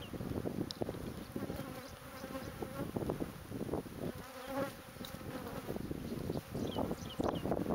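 A honeybee colony buzzing continuously as its comb is cut open; the bees are stirred up and defensive. Scattered short knocks run through the buzz.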